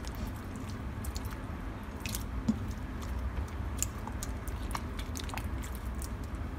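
Hand squeezing and kneading wet, half-set slime in a glass bowl of liquid activator: irregular squelching with many small sticky pops and clicks as the slime binds.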